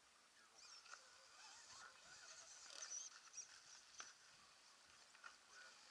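Faint high whine of a radio-controlled rock crawler's electric motor and gearbox as it climbs over rock, with a few sharp clicks.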